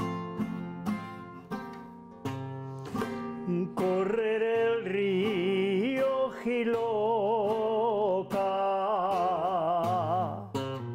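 Aragonese jota: an elderly man sings long, wavering notes to his own strummed classical guitar. The guitar plays alone for about the first four seconds before the voice comes in, and the singing breaks off near the end.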